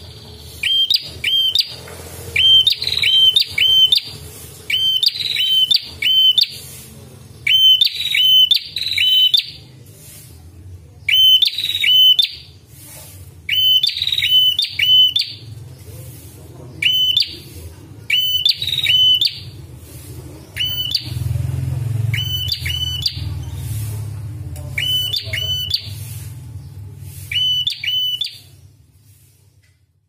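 Ashy tailorbird singing: sharp, loud chirping notes in quick runs of two to four, repeated every second or so, over a steady low hum. The sound fades out near the end.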